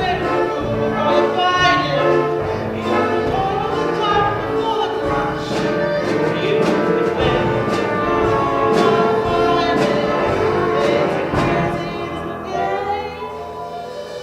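Musical-theatre song performed live: voices singing long, held notes over instrumental accompaniment, with a last held note fading near the end.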